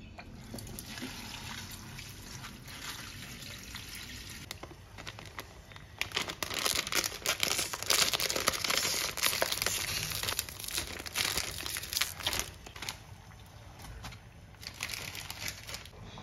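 Water running steadily for about six seconds, then loud crinkling of a plastic packet of dried noodles being handled and opened for several seconds, with a shorter crinkle near the end.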